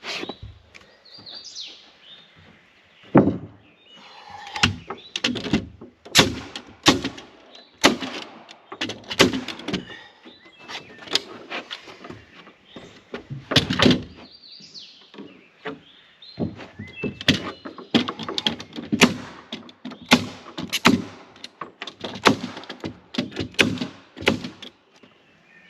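Sharp knocks and thuds of carpentry work on wooden boards, coming irregularly about a second apart, with birds chirping now and then.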